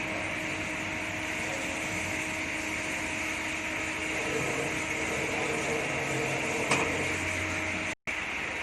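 SunFirm CKT 26120 CNC lathe running steadily: an even mechanical hum with a faint steady whine. A single click comes about seven seconds in, and the sound breaks off briefly just after.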